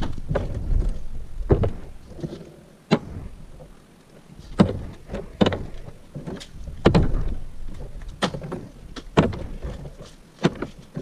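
Irregular knocks, clicks and clatter as a plastic kart body and kart parts are handled on a sawhorse workbench, with a low rumble in the first couple of seconds.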